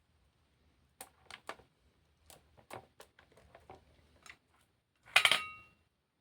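A series of light taps and clicks, then one louder clattering clink near the end that rings briefly, like metal or hard objects knocking together.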